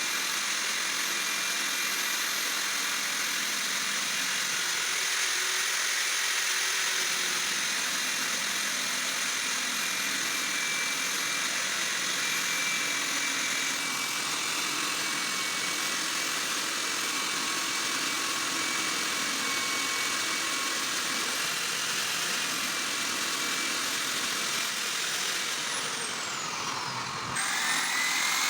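Diamond core drill boring into a concrete slab, its motor running with a steady whine over the grinding of the bit. Near the end the whine falls sharply in pitch, breaks off, then climbs back up as the motor speeds up again.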